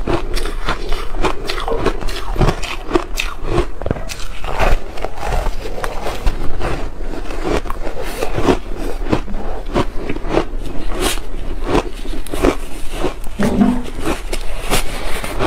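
A person biting and chewing slushy ice, with many short crunches and crackles as the ice breaks between the teeth.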